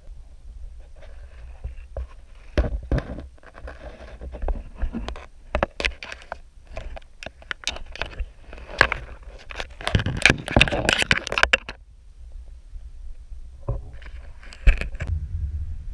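Crab's claws and legs clicking and scraping on a GoPro's underwater housing, heard from inside the housing: an irregular run of sharp clicks and scrapes, thickest about ten seconds in, with a few more near the end.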